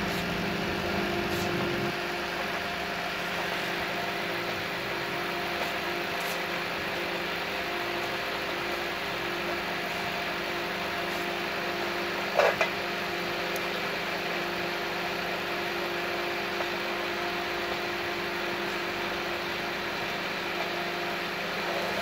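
Gorenje microwave oven running with its casing off: a steady electrical hum from the high-voltage transformer together with the cooling fan. There is one short knock about twelve seconds in.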